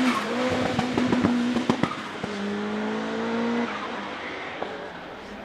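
Turbocharged 1.8-litre four-cylinder Cosworth engine of a Ford Escort RS1700T Group B rally car running hard at high revs. A rapid burst of sharp cracks comes about a second in, then a steady note is held and fades away near the end.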